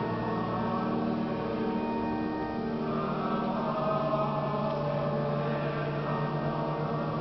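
Church music of long held notes in a large stone basilica, the chords changing slowly.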